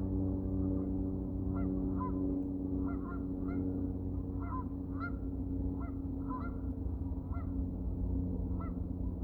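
Geese honking, a string of short calls repeated about twice a second, over a steady low drone.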